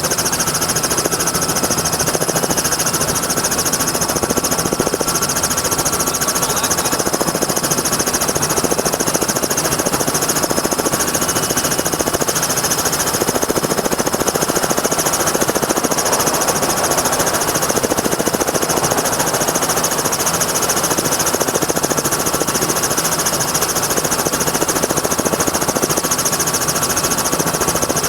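Helicopter in flight: a steady, rapid chopping from the rotor blades with a constant turbine whine over it.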